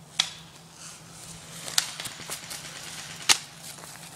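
Airsoft guns firing single shots: three sharp cracks about a second and a half apart, with fainter pops in between.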